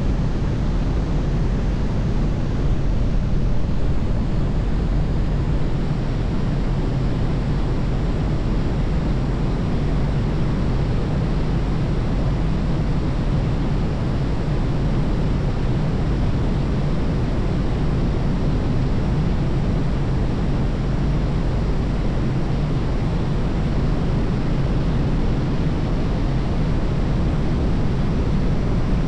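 Steady rush of wind over an outside-mounted camera's microphone as a glider flies, a low, even roar with no engine tone and no change throughout.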